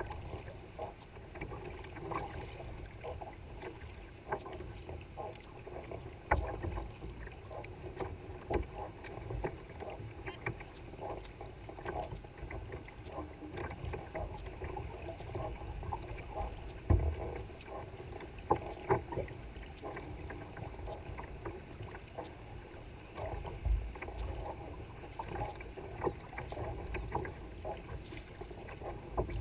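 Paddling a Libra sea kayak: paddle blades dipping and splashing in rhythm and chop slapping against the hull, over steady wind noise on the microphone. A few louder low thumps stand out, the strongest about 17 seconds in.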